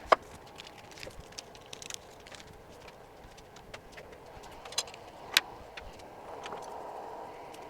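Scattered sharp clicks and light taps of small tools and phone parts being handled while an iPhone 11 logic board is reassembled, with two louder clicks, one right at the start and one about five seconds in.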